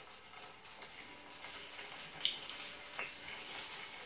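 Hot oil sizzling in a frying pan as sesame-coated rice balls are lowered in, with a few sharp crackles and pops.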